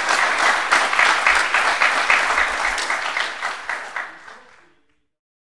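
Audience applauding at the end of a talk, dying away about four seconds in.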